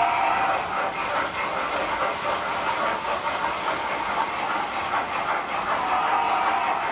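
Model trains running on the layout's track: a steady rolling rush of metal wheels with a fast clickety-clack over the rail joints.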